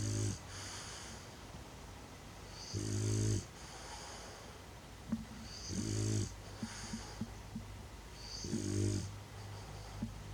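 Bulldog snoring in a steady rhythm, four snores about three seconds apart, each with a high wheezy whistle. Faint clicks fall between the snores.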